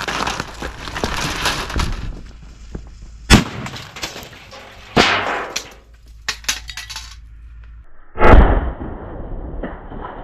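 A Big Bang 5G firecracker goes off with one heavy bang about eight seconds in, the loudest sound. Before it come a noisy crackle, two sharp cracks and scattered clattering clicks.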